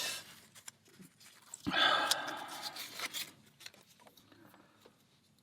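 A person breathing out hard through the mouth for about a second and a half, with scattered light clicks of a lock and key being handled.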